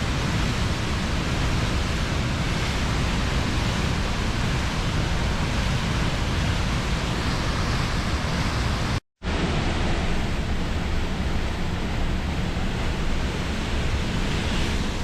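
Steady, loud rushing of the Reekie Linn waterfall on the River Isla, running high in spate after heavy rain. The sound cuts out completely for a split second about nine seconds in.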